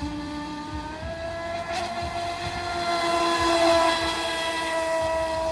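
Amewi Princess 960 mm RC yacht's electric motor running at speed on a 4S LiPo: a steady whine whose pitch steps up about a second in. It is loudest a few seconds in as the boat passes close, with a hiss of water spray.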